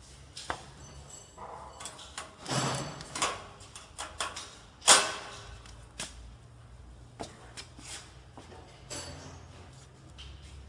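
Clear plastic wrapping film crinkling and rustling as it is pulled by hand through the stainless steel forming box of a flow wrap machine, with scattered clicks and knocks against the metal. The loudest is a sharp knock about five seconds in, over a faint low hum.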